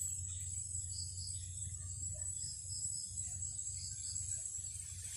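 Insects chirring steadily in a high, thin tone, with small repeated chirps above a low steady rumble.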